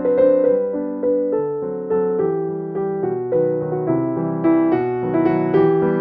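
Background piano music: struck notes that ring and fade, following one another at an even, unhurried pace.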